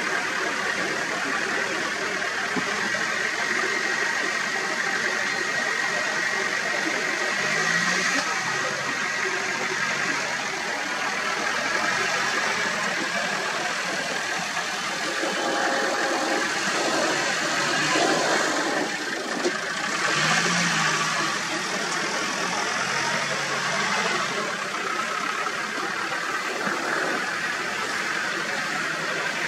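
A vehicle engine idling steadily, with a few louder swells about eight seconds in and again around sixteen to twenty-one seconds in.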